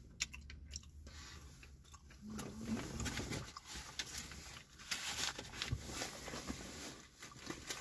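A person chewing a mouthful of crispy chicken sandwich: soft crunching with small wet mouth clicks.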